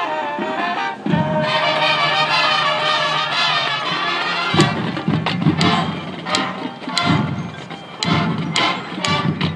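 Marching band playing a field-show piece: the winds hold sustained chords, then about four and a half seconds in, the music turns to heavy drum and percussion hits with accented strikes.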